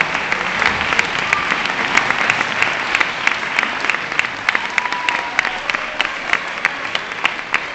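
Audience applauding, with sharp hand claps close by standing out at about three a second over the general clapping.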